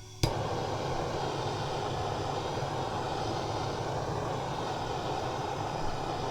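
Propane torch lighting with a sharp click, then its flame burning with a steady rushing hiss.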